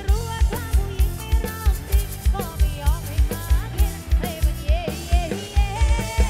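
Live Thai rot hae band music: a female vocalist singing over electric bass and a quick, steady kick-drum beat, played loud through the truck's sound system.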